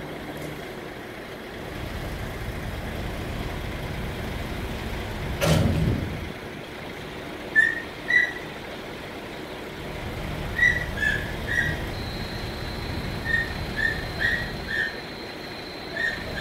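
Heavy vehicle engines of a mobile crane and truck running steadily during a container lift. A short sharp burst of noise comes about five seconds in. From about halfway on, short high chirps repeat irregularly, with a thin steady high tone joining near the end.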